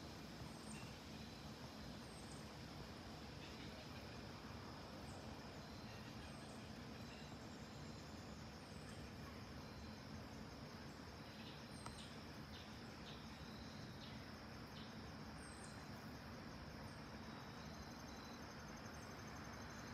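Faint, steady outdoor background noise with a low even rumble, insects trilling, and short high bird chirps every few seconds.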